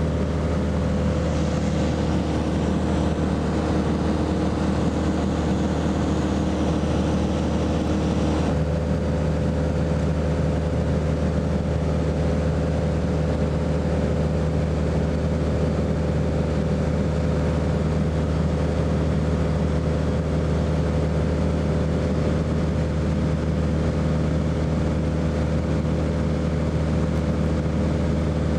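Aircraft engine and propeller droning steadily, heard from inside the cabin in flight.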